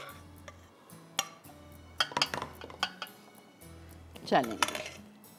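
A spoon clinking and scraping against a pan and a metal jumbo muffin tin: a handful of sharp clinks, with a louder cluster and a short scrape about four seconds in.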